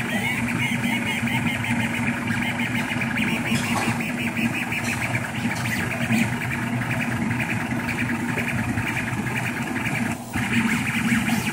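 Rostock MAX delta 3D printer's stepper motors whining and chirping in quickly changing tones as the print head moves rapidly, over the steady hum of its cooling fans.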